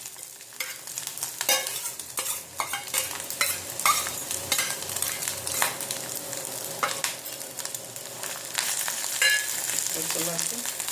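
Grated ginger sizzling as it fries in hot cow's ghee in a pan, stirred with a spoon that scrapes and clicks against the pan again and again.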